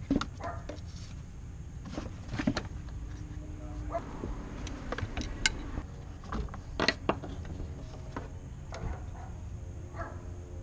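Scattered clicks, knocks and rubbing of a 2008 Dodge Avenger's rubber air intake tube and plastic breather hoses being handled and pulled loose in the engine bay, over a low steady background rumble.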